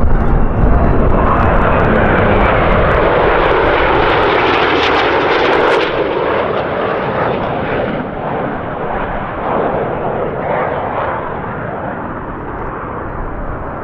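Jet noise from a formation of Northrop F-5E Tiger II fighters, each powered by twin J85 turbojets, passing overhead. It is loudest for the first six seconds or so, then fades as the jets pull away.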